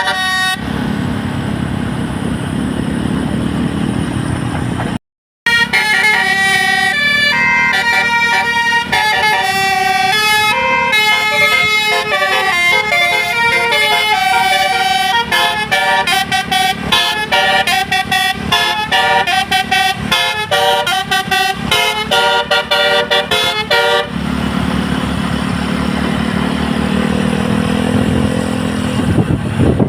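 Tour bus's Basuri telolet multi-tone air horn playing a tune of quick stepping notes, from about five seconds in until about six seconds before the end. Before and after the tune, the bus's engine and road noise are heard alone.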